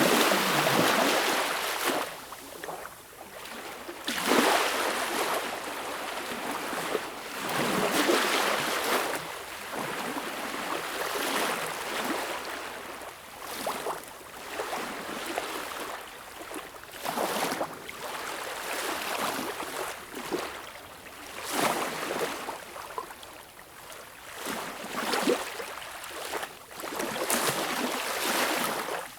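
Small waves lapping at a beach shore: an irregular splashing wash that swells and ebbs every few seconds, with brief lulls between.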